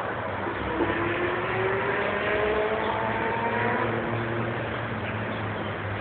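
Street traffic noise with a vehicle engine accelerating: a slowly rising engine tone for a few seconds over the steady rumble of traffic.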